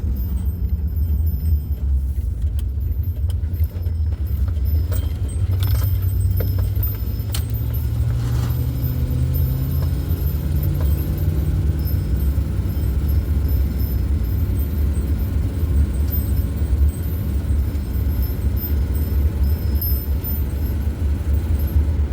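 Low engine and road rumble inside a moving van's cab, with the engine note rising as it speeds up partway through. Light jingling rattles sound in the first several seconds.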